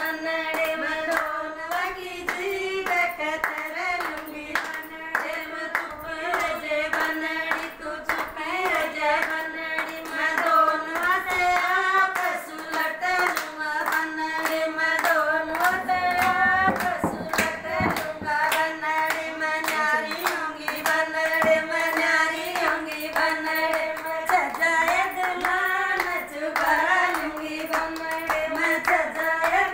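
A group of women singing a folk song together in unison, keeping time with steady rhythmic hand claps.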